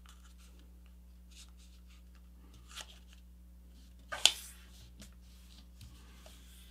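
A sheet of paper being folded and creased by hand: faint rustling, a short brushing swish near the middle and a louder one about four seconds in as a fold is pressed flat.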